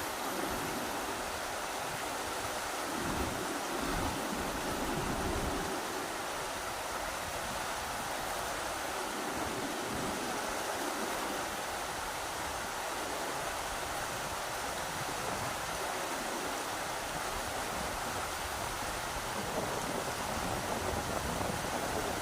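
Rushing river water, a steady dense rush. Gusts of wind buffet the microphone with a low rumble, most strongly about three to five seconds in.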